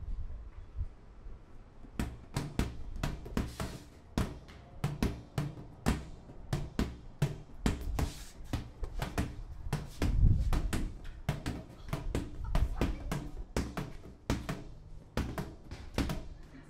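A fast, uneven run of sharp taps or knocks, several a second, over a low rumble, loudest about ten seconds in.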